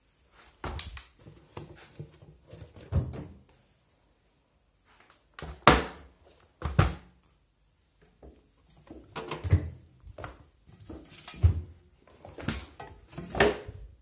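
Shoes being dropped and pushed into the drum of a front-loading washing machine: a series of irregular thunks and knocks with short pauses between them. The loudest comes about six seconds in.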